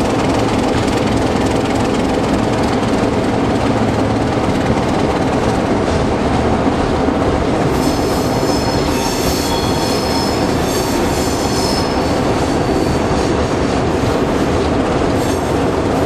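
Baldwin DS-4-4-1000 diesel switcher locomotive running steadily while pulling a long train, heard from beside its hood. From about halfway through, wheels squeal high-pitched for a few seconds as the train works through a curve.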